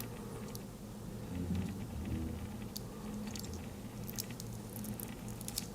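Faint scattered clicks and light scratching of a headphone driver's small parts being picked apart by hand, over a low steady hum.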